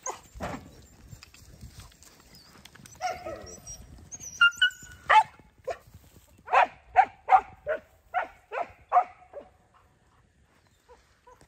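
Hunting hounds barking, a quick run of about ten barks at roughly two a second about halfway through, then falling quiet.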